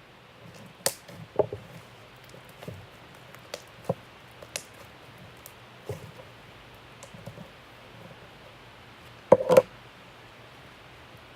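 Slime being handled, making scattered clicks and pops, with a louder cluster of pops about nine seconds in.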